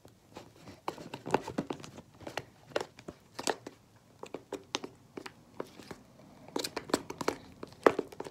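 Irregular sharp crackling and clicking as a foamy slime mixture of glue and shaving cream is stirred in a bowl with added paint. The crackles come denser near the end.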